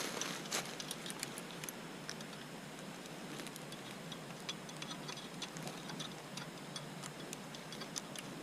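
Scattered small metallic clicks and ticks, irregular and unevenly spaced: a bicycle chain and bent rear derailleur being handled and worked during a trailside repair. The clicks come thickest in the first couple of seconds, then thin out.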